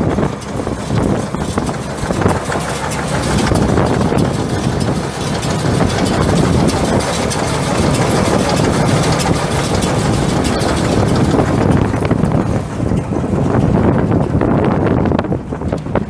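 Engine running steadily, likely the tractor that powers the baler, with a brief dip in level near the end.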